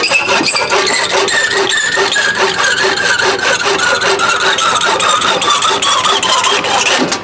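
Wooden-handled handsaw cutting through the end of a wooden hammer handle where it sticks out of a brass hammer head, in fast even back-and-forth strokes with a ringing whine that slowly falls in pitch. It stops suddenly near the end as the stub is cut through.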